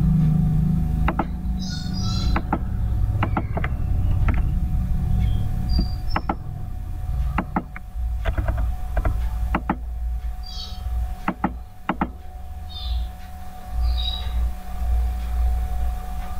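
Computer keyboard keystrokes and mouse clicks, about a dozen sharp separate clicks, as a file name is typed and saved. Under them runs a steady low rumble with a faint steady hum, and a few brief high chirps come now and then.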